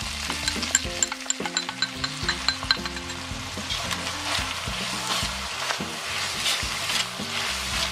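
Diced chicken sizzling in hot oil in a wok as the kung pao sauce is poured in, with a spatula stirring and scraping against the wok.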